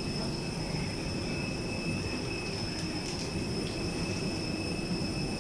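Steady low drone of airport machinery with a few faint, unchanging high-pitched whines, heard through the window glass beside a parked jet airliner.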